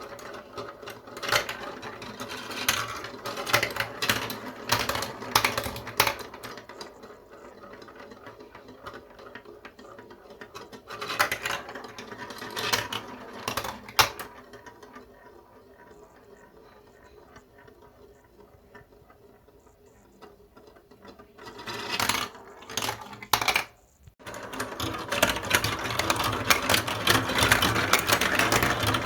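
Marbles rolling and clacking through a block-built marble run: rapid clicks at first, a quieter roll with scattered knocks in the middle, then a dense, continuous clatter near the end as many balls run through at once.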